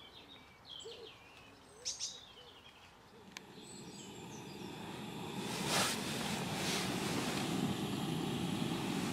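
Faint bird calls, then about three seconds in the burner of a gas-canister camping stove starts to hiss, building to a steady, fairly loud hiss under a kettle.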